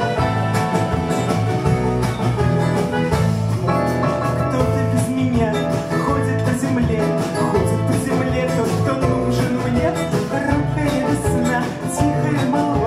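A small band playing a song live: acoustic guitar, bayan (button accordion), clarinet, bass and drums.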